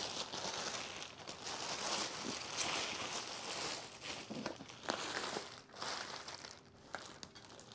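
Clear plastic packaging wrap being handled and crumpled, a continuous crinkling rustle with a few sharper crackles, dying down near the end.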